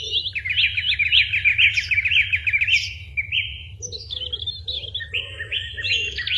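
A small bird singing a long run of rapid, sharp chirps, broken by short pauses about three and four seconds in, over a steady low hum.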